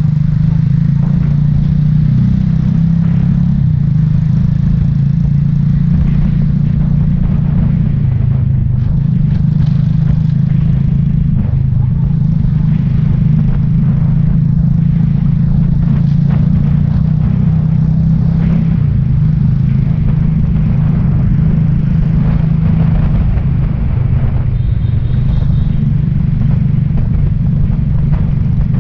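Motorbike riding along a street: a steady engine hum with road noise and a constant low wind rumble on the microphone.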